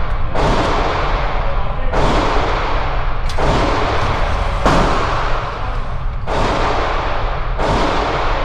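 Gunshots at a shooting range: six single shots at an even pace, about one every one and a half seconds, each echoing and dying away before the next.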